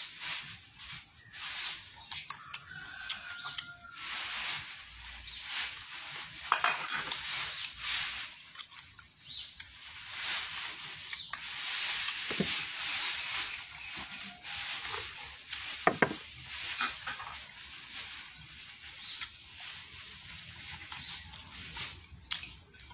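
Close eating sounds: a cat chewing and licking food from a ceramic plate, with small wet clicks and taps against the plate.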